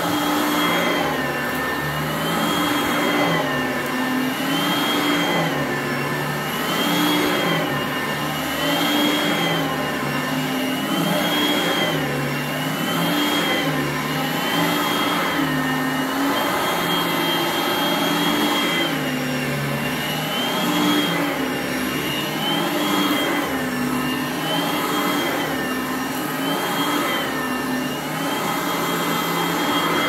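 Upright vacuum cleaner running over carpet. Its motor pitch rises and falls every two seconds or so as it is pushed back and forth, over a steady rush of air.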